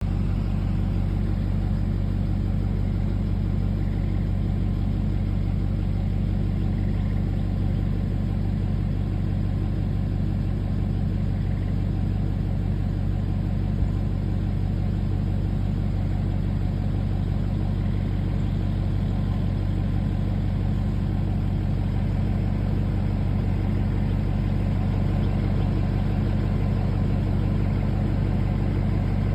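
Mini excavator's diesel engine idling steadily at an even, unchanging pitch, with a single light click about halfway through.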